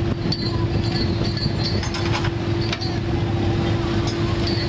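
Fishing boat's engine running at a steady drone with a constant hum, and scattered short clicks and clinks of gear on board.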